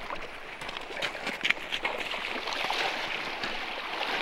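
Fast river water rushing steadily, with a few short sharp clicks between about half a second and two seconds in.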